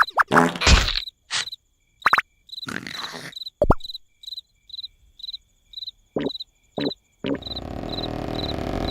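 Crickets chirping in a steady rhythm, about two chirps a second, with several brief, sudden sounds in the first seven seconds. An even background noise comes in near the end.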